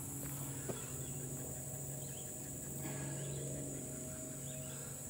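Steady, high-pitched insect drone outdoors, with a low steady hum underneath.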